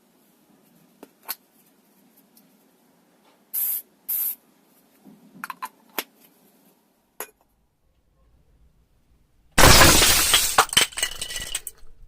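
An aerosol spray can is hit by an airsoft BB and bursts open: a sudden loud hiss of escaping spray that lasts about two seconds and fades, with clinks. Earlier there are a few faint clicks and two short hisses.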